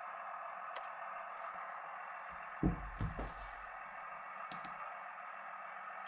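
Handling noise: two or three dull knocks a little before halfway through as the handheld RC transmitter is shifted close to the camera, over a steady mid-pitched hum and a few faint clicks.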